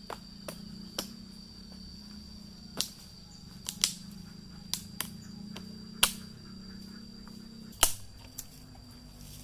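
A dozen or so sharp, irregular knocks or clicks, unevenly spaced and some louder than others, over a steady high whine and a low hum.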